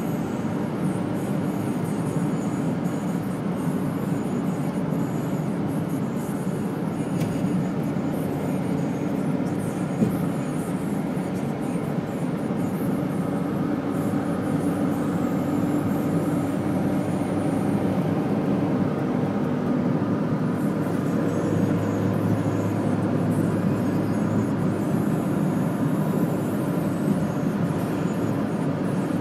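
Steady engine drone and tyre noise from inside a moving vehicle's cabin on a wet road, with a lower hum joining about three quarters of the way through.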